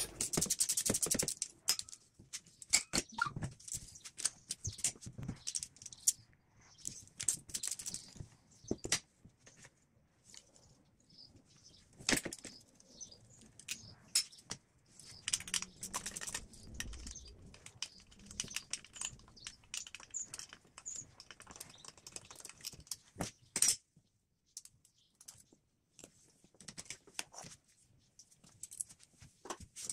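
Irregular clicks and metallic clinks of hand tools and loose parts as screws are undone and a metal EGR pipe is taken off a Volvo 2.0-litre diesel engine.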